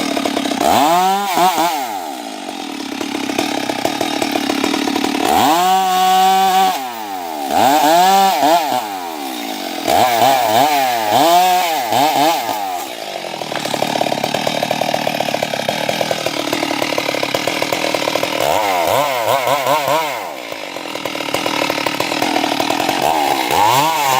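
Stihl two-stroke chainsaw cutting a tree, its engine speed rising and falling again and again as the throttle is worked. There is a steadier stretch of running in the middle.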